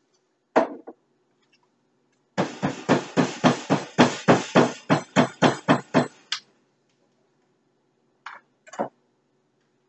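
A single sharp knock, then a fast, even run of sharp knocks, about four a second for some four seconds, as kitchen implements strike hard surfaces during juice prep, with two softer knocks near the end.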